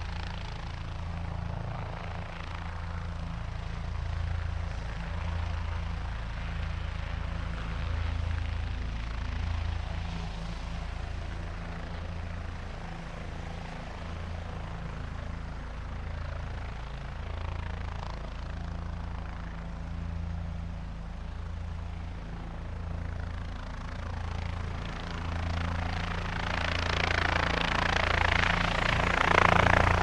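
Helicopter running with a steady low rotor throb. A rushing noise swells over the last few seconds and is loudest near the end.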